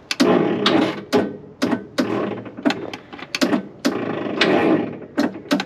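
Starter motor turning the Wisconsin V4 engine over very slowly in uneven, labouring strokes, about two a second, with clicks and clatter; the engine does not catch. The slow cranking is the sign of a flagging battery or jump box.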